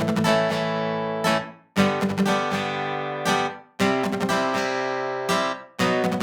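Software synthesizer preset, a physically modelled guitar-like sound, playing strummed chords. A new chord comes about every two seconds, each rings and fades, with a short extra stroke just before the next one.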